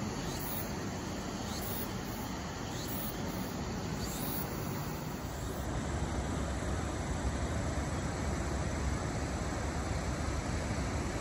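Steady rushing of water released down the face of a concrete gravity dam, with a deeper rumble coming up after about six seconds.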